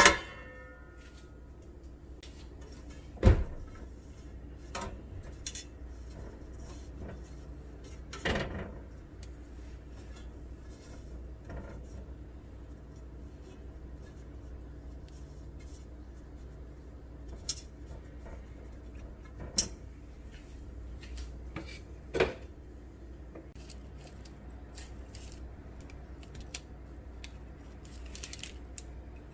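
Scattered clinks and knocks of dishes and cooking utensils, a few of them sharper and louder, over a steady low hum.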